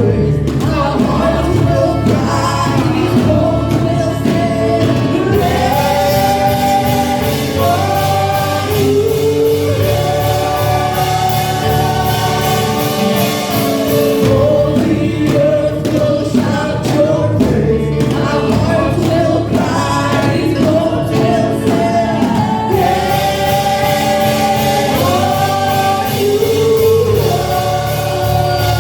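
Gospel music: a choir singing held, sliding lines over instrumental accompaniment with a steady beat.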